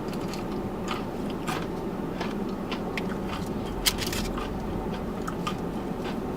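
Close-up chewing of a breaded chicken tender: scattered crunching and wet clicking mouth sounds, with one sharper crunch about four seconds in.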